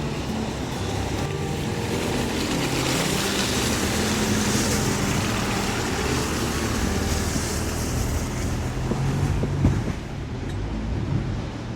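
A vehicle engine running steadily under a rushing wind-like noise that swells a few seconds in and eases toward the end.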